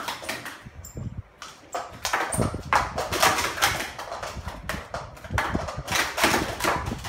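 Plastic sport-stacking cups being rapidly stacked up and down on stacking mats: a fast, uneven run of light plastic clacks and taps.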